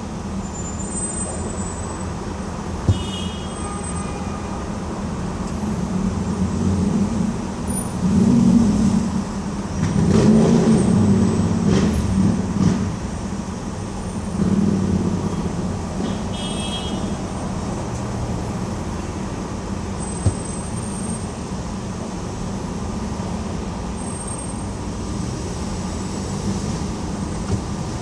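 Steady road traffic crossing the Queensboro (59th Street) Bridge, a constant low rumble of engines and tyres. Several louder passes of heavy vehicles come through about a third of the way in and again around the middle.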